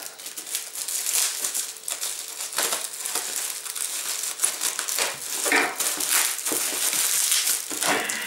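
Plastic stretch wrap around a parcel crinkling and crackling as it is slit and picked open with a folding knife, with scattered sharper scratches of the blade on the plastic.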